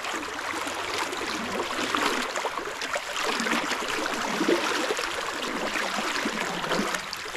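Fast-flowing river water rushing and gurgling, a steady rush broken by many small irregular splashes and ripples.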